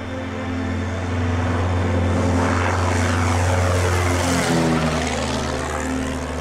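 Cessna single-engine propeller plane at takeoff power, climbing out and passing low overhead. The engine and propeller drone grows louder, peaks as it passes about four seconds in, then drops in pitch as it flies away.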